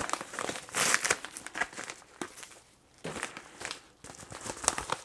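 Packing material crinkling and rustling in irregular bursts as an item is handled and unwrapped, with a short pause midway.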